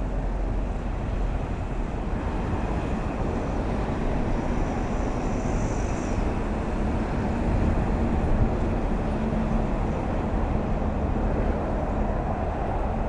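Steady road noise of vehicles travelling on a toll road: a continuous low rumble of tyres and engines. A faint steady hum joins in about four seconds in, and a brief high whine is heard around the middle.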